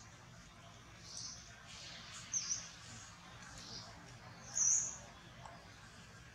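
Birds chirping: a handful of short, high-pitched chirps, some dipping and rising in pitch, the loudest a little after halfway, over a faint low hum.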